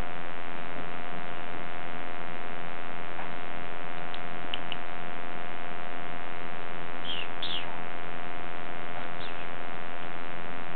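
A steady electrical hum with an even buzzing tone. A few short, high chirps come through it around the middle.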